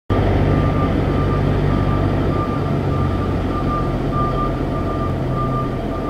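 Backup alarm of a construction vehicle beeping repeatedly at a steady pace over its running engine's low hum.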